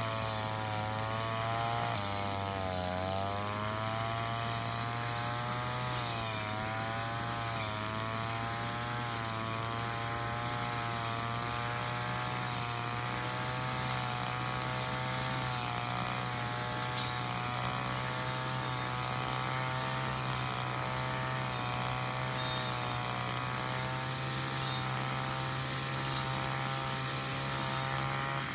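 Petrol brush cutter engine running at high revs while cutting grass, its pitch dipping and recovering several times as the blade takes load. Many short ticks of cut grass and debris striking the guard, with one sharp crack a little past the middle.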